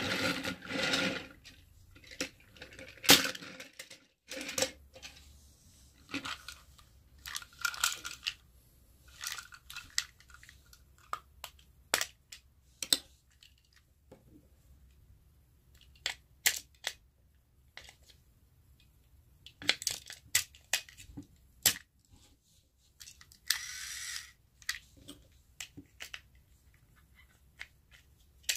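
Sharp plastic clicks, taps and rattles from handling a Plarail toy train: the cars being pulled apart and the engine's battery compartment opened. A few longer scraping sounds come near the start, about eight seconds in and near the end.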